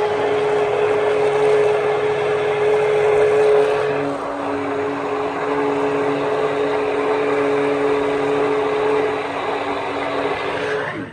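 Commercial stick (immersion) blender running steadily, its motor humming as it purées a thick green vegetable soup in a steel pan, with a churning whir from the blades in the liquid. The motor pitch drops slightly about four seconds in, and right at the end the motor winds down and stops.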